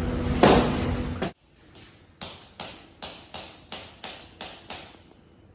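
A loud, noisy rush that cuts off suddenly just over a second in, followed by a regular series of about eight sharp taps, close to three a second, each dying away quickly.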